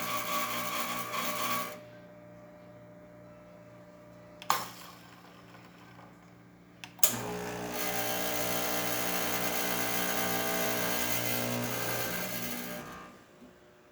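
Expobar espresso machine's pump humming against a blind filter during a backflush, cutting off, then switching on again a few seconds later and running for about six seconds before stopping. Two sharp clicks come in the pause between the runs.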